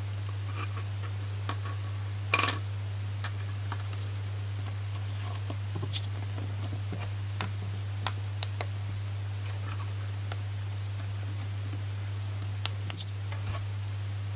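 Samsung Galaxy Note 9 S Pen tapping and touching the phone's screen, its loose button rattling with each contact. Scattered light clicks come at irregular intervals, the loudest about two seconds in, over a steady low hum.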